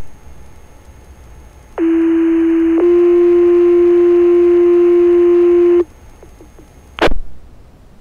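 Two-tone sequential paging tones over a fire department radio channel: a steady tone for about a second, then a slightly higher tone held about three seconds, the page that alerts volunteer firefighters to a call. Radio hiss, with a short burst of static about seven seconds in.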